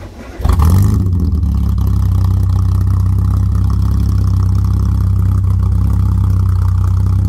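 Classic sports car engine cold-started, heard at the exhaust tailpipes: a brief start in the first half second, then the engine catches with a short flare of revs and settles into a steady idle.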